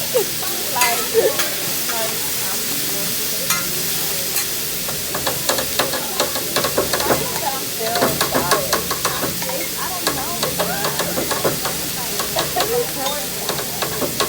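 Food sizzling on a hibachi griddle: a steady hiss with frequent short clicks and clatter of utensils working the food.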